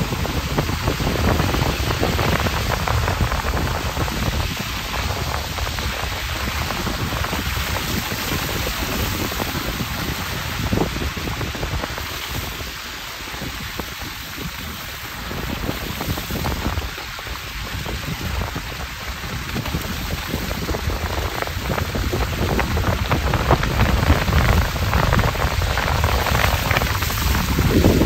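Car tyres running through wet slush and snow: a steady hiss with a low rumble underneath. It eases off for a few seconds in the middle and grows louder near the end.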